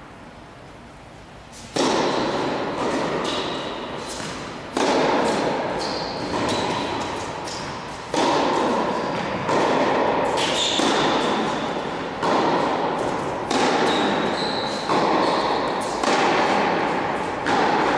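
Tennis ball being hit back and forth in a rally on an indoor court: about ten sharp hits, one to three seconds apart, starting about two seconds in, each followed by a long echo in the hall.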